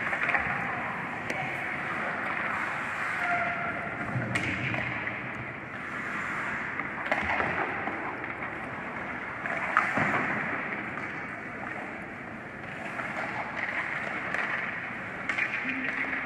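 Hockey skates scraping and carving on rink ice, a steady hiss. Occasional sharp clacks of sticks and puck, a few clear ones about four, seven and ten seconds in.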